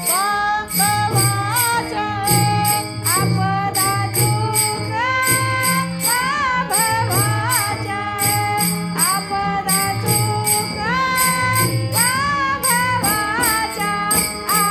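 Marathi devotional abhang music: a melody that slides between notes over a steady beat of drums and jingling percussion.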